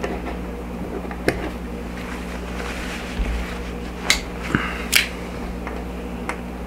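A few sharp clicks and taps from a metal carabiner, cord and a folding pocket knife being handled on a wooden table, with some brief rustling of cord, over a steady low hum.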